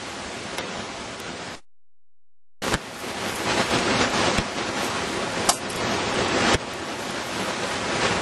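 Steady wind noise on the microphone, broken by about a second of dead silence where the recording cuts. After the cut come a few sharp cracks as dead branches are swung, struck and snapped for firewood.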